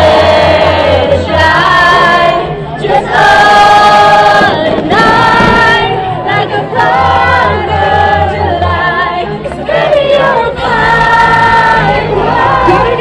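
Music with a choir singing long held notes over a steady bass, loud throughout.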